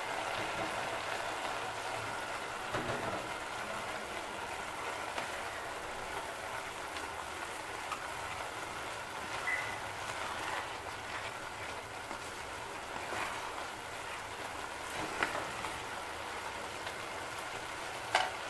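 Polao rice sizzling in a pot on a gas stove, a steady hiss as its milk-and-water liquid is nearly cooked off. A wooden spatula stirs and scrapes through the rice a few times.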